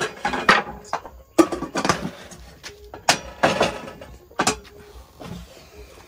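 A metal cooking pot and utensils knocking and scraping: a series of sharp clatters and short scrapes, about seven in all, spread unevenly.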